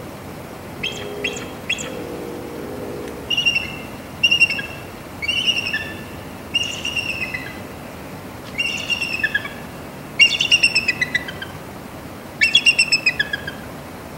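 Bald eagle calling: three short sharp chips, then a series of about seven bursts of rapid, high chittering notes that fall in pitch, one burst every second or two.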